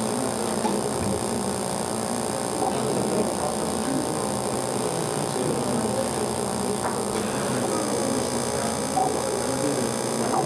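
Indistinct murmur of several people talking in a room, over a steady electrical hum.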